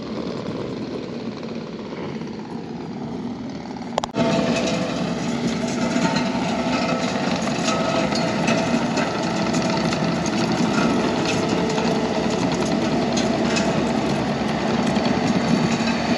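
Takeuchi TL12V2 compact track loader's diesel engine running under load as it drags a rake attachment through hard dirt. It is fainter at first, then suddenly closer and louder about four seconds in, with a steady engine drone.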